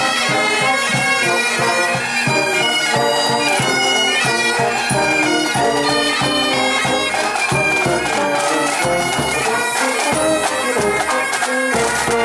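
Highland bagpipes of a marching pipe band playing a tune over their steady drones, with the band's drums beating along.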